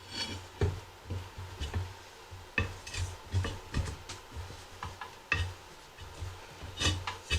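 Irregular metallic clinks and knocks with dull thumps: a steel tire tool on a manual tire changer working against the rim while an ATV tire's bead is pushed down off the rim.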